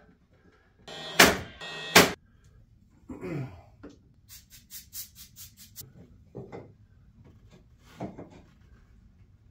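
Handling sounds of small wooden trim pieces and tools: two loud, sharp knocks about a second apart, then a quick run of about seven light clicks, then a few softer knocks and rubs.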